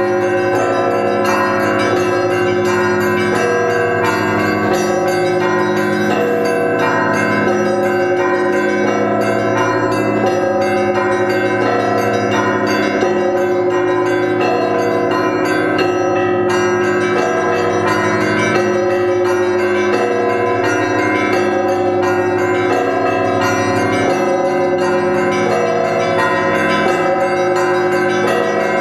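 Russian Orthodox monastery church bells ringing continuously. Many bells of different pitches sound together, with a steady rhythmic pattern that repeats about every second and a half.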